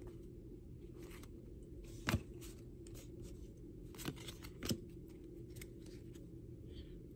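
Trading cards being slid one at a time through a handheld stack, their edges giving scattered light clicks and flicks, the sharpest about two seconds in, over a faint low room hum.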